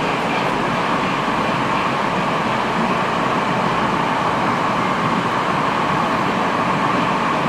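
Steady running noise heard from inside a Metrowagonmash 81-765 "Moscow-2019" metro car as the train travels at speed, with a constant hum in the middle of the range and no braking or door sounds.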